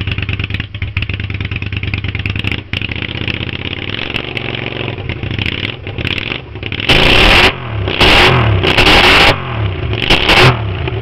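Suzuki V-twin cruiser motorcycle engine running through its new custom exhaust pipes, freshly started and idling. In the second half it is revved four times in quick succession.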